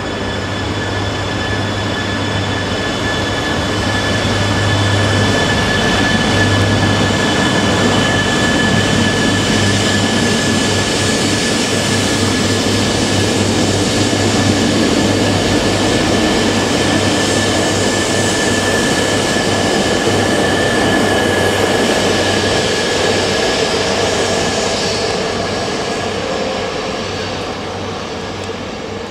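Shinkansen train running through the station. The sound builds over the first few seconds, holds with a steady high whine over the rushing noise, and fades away near the end.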